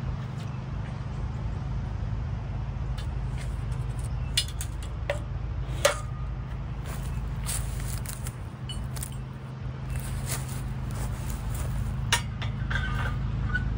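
A few light metallic clicks and clinks as aluminium solar-racking parts and a tape measure are handled, the sharpest about six seconds in, over a steady low hum.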